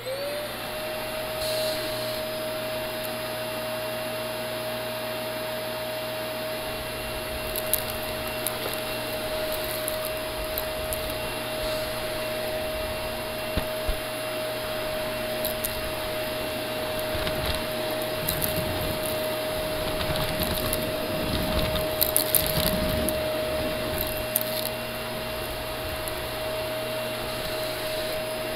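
Shark Navigator upright bagless vacuum switched on: its motor spins up with a rising whine and then runs steadily on carpet. A few sharp clicks and crackles come through, the crunch of debris being sucked up.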